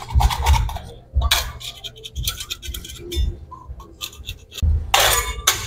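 Metal hand scraper scraping algae and grime off a concrete floor in a quick, irregular series of short strokes. The strongest strokes come near the end.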